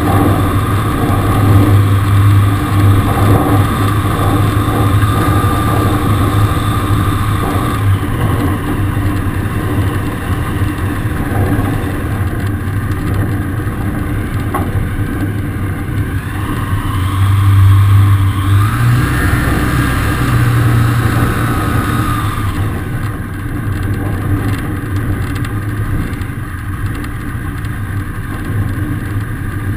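Zenair CH 701 light aircraft's engine and propeller running steadily on the ground. The engine speeds up briefly about two-thirds of the way through, then settles back to a lower, quieter pace.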